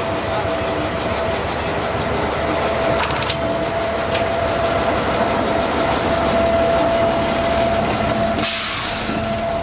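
Köf small diesel shunting locomotive passing close at low speed with its engine running, wheels clicking over rail joints about three and four seconds in, then the wooden coach rolling by. A steady high tone runs underneath throughout.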